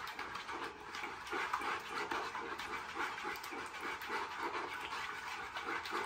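Wooden utensil whisking egg yolk into an oily dressing in a wooden salad bowl: rhythmic wet scraping and swishing strokes, about four a second.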